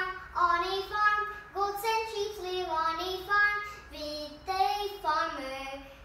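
A young girl singing a children's rhyme, one phrase after another with held notes.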